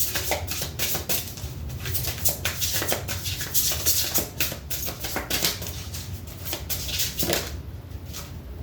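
A new tarot deck being shuffled by hand: a dense, rapid run of card slaps and rustling that dies down about a second before the end.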